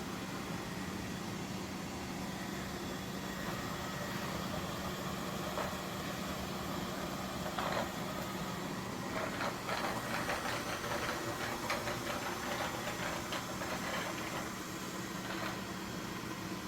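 Robot vacuum running with a steady motor hum. About nine seconds in, a few seconds of rapid clicking and rattling sound over the hum.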